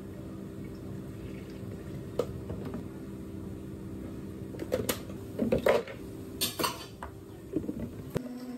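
Clinks and clatters of a scoop and ice going into a plastic blender jar at a café counter. A single click comes about two seconds in, and a run of loud, sharp clatters falls in the second half.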